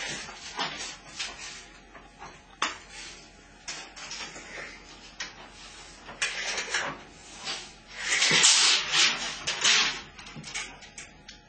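A long measuring tape being run out and slid along the floor and wall, heard as irregular bursts of sliding and rustling noise with a few sharp clicks, loudest about eight seconds in.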